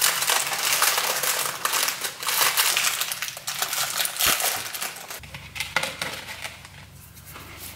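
Snack packaging crinkling and rustling as it is handled and torn open, a dense run of little crackles that dies down after about five seconds, with one sharp knock a little after four seconds.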